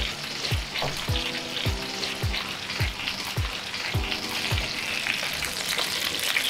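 Chicken thighs sizzling and crackling in rendered fat in a hot cast iron skillet. Under the sizzle runs background music with a low thudding beat about twice a second.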